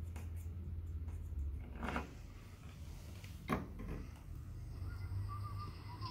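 A steady low hum with two short knocks, about two and three and a half seconds in: handling noise as multimeter test leads are held against the TV power board.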